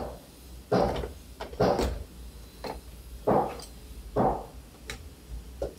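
Electrical switch panel being fitted into its opening in a wooden helm console: about seven irregular knocks and bumps of the panel against the wood.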